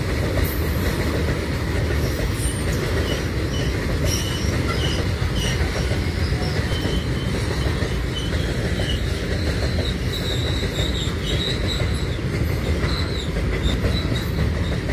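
Freight train of oil tank wagons rolling past, a steady heavy rumble of steel wheels on the rails with short, high wheel squeals coming and going.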